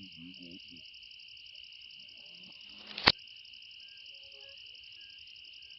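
A single sharp shot from a PCP air rifle about three seconds in, over the steady pulsing trill of crickets.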